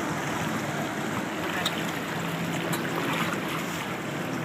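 Motorboat engine running at a steady cruising speed, a low even hum, under the rushing of water in the boat's wake.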